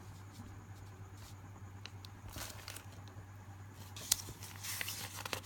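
Paper pages of a thin comic book being handled and turned: soft rustles, busier in the last second and a half, with one sharp click about four seconds in, over a faint steady hum.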